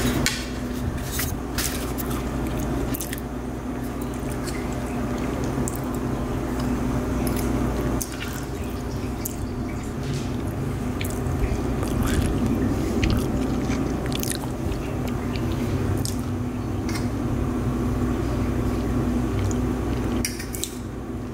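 Fork and spoon clicking and scraping on a ceramic plate, with chewing close by, over a steady low hum.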